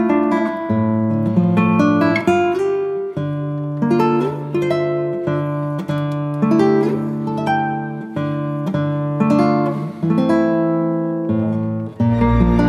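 Instrumental background music of plucked strings, with notes picked out one after another and left to ring and fade. Near the end it gives way to a fuller, sustained passage.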